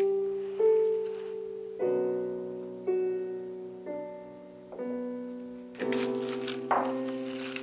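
Gentle solo piano background music, a new note or chord struck about once a second. Near the end there is a light crinkling of plastic cling wrap being handled over a glass bowl.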